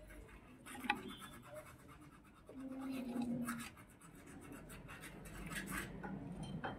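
Faint clicks and scraping as small parts are handled and fitted into a Honda Dio 110 scooter's bare aluminium crankcase, with a brief low hum about three seconds in.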